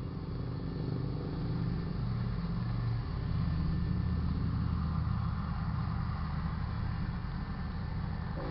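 Low rumble of approaching GE diesel locomotives, growing steadily louder.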